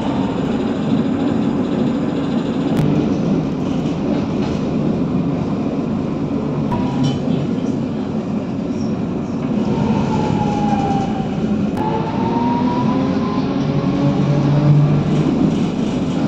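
Ride inside a VMZ-52981 trolleybus in motion: a steady low rumble of the running vehicle with scattered rattles of the body. About ten seconds in, the electric traction motor's whine falls in pitch as the trolleybus slows, then rises again as it picks up speed.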